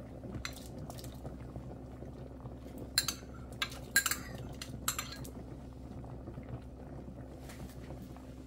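Kitchen utensils clinking against a pot several times, with the sharpest knocks about three to five seconds in, over a steady low hum.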